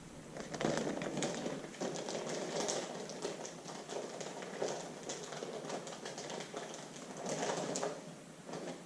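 Plastic packaging of a gasket and seal kit being handled and opened: irregular crinkling and rustling with many small ticks.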